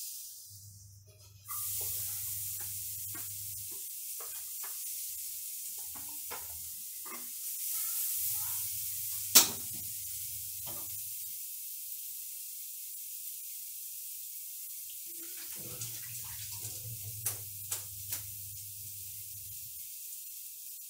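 Steady hissing sizzle from a frying pan of butter or margarine melting over a lit gas burner. There is a sharp knock of metal about nine seconds in and a few lighter taps near the end.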